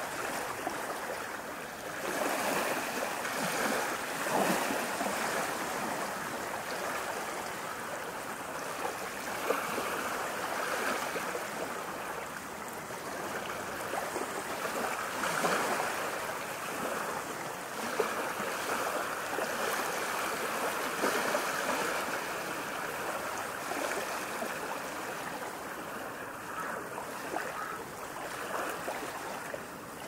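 Ocean waves breaking and washing up a shore: a continuous rushing wash that swells louder every several seconds as each wave comes in.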